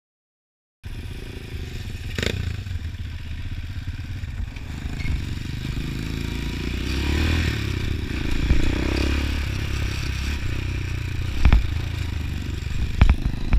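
Motorcycle engine running while riding, heard from on the bike. It starts abruptly about a second in after a silent gap, with a few sharp knocks near the end.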